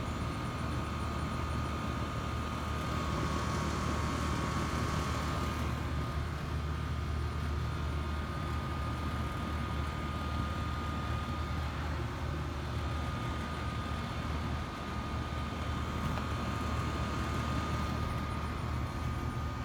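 Steady rainfall hiss over a continuous low drone and a thin steady high whine, with no sudden claps.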